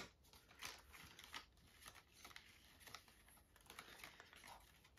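Faint rustling and light taps of small wrapped advent-calendar packages being handled, with a sharper click at the very start.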